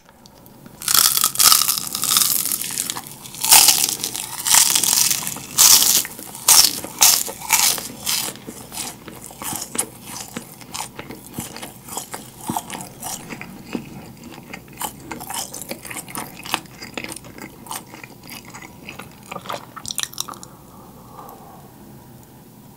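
Close-miked bites and chewing of yugwa, a fried Korean glutinous-rice cracker coated in puffed rice. Loud crisp crunches come thick and fast for the first several seconds, then thin out into softer, sparser chewing crunches that fade away.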